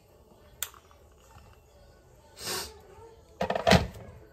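Kitchen handling sounds: a short rustle about halfway through, then a cluster of knocks and clatter near the end as the electric kettle and the ceramic mug are set down and handled.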